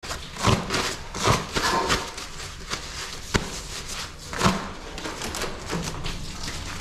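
Paper towel crinkling and rustling as hands rub and crumple it, with several sharper crackles.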